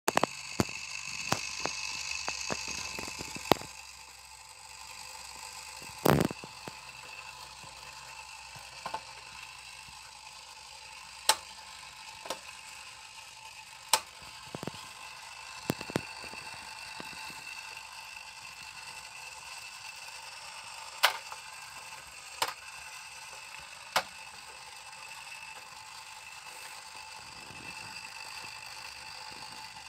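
Sharp mechanical clicks at irregular intervals from an Orbis staircase timer being operated by hand, as its push button and switch are worked. The loudest click comes about six seconds in, over a steady background hiss.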